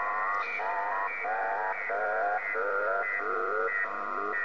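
Interference noise on the 10-metre amateur band heard through a radio receiver: a warbling tone in short repeating blocks, about one every half second or so, stepping down in pitch over a few seconds. The noise is local to the operator's property and wipes out the band; he is not sure whether it comes from power line adapters.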